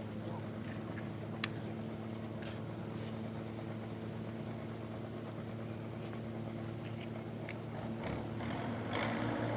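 An engine idling with a steady low hum, and a single sharp click about a second and a half in.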